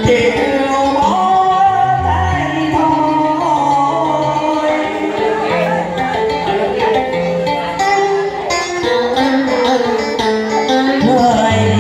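A Vietnamese duet sung into microphones over instrumental backing music: a man sings first, then a woman takes over the melody.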